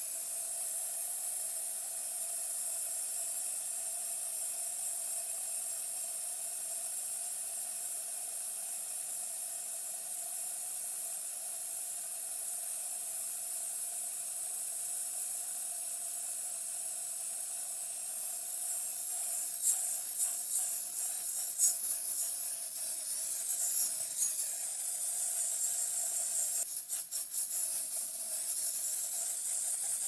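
Aerosol can of disinfectant spraying in one long continuous hiss, with a faint steady tone under it. Over roughly the last dozen seconds the spray turns uneven, with brief surges and dips.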